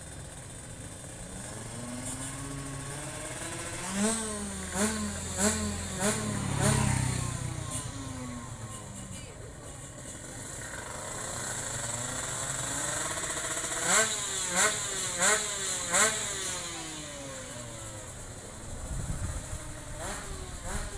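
Two-stroke drag bikes running hard down the strip, their engines revving up and dropping with four quick gear changes each time. One run comes about four seconds in and another about fourteen seconds in, each pitch falling away after the last shift.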